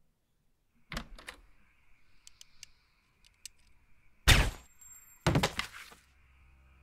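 A door latch clicks and the door opens with a few knocks. About three seconds later a single loud handgun shot rings out, followed a second later by a second, longer run of heavy impacts.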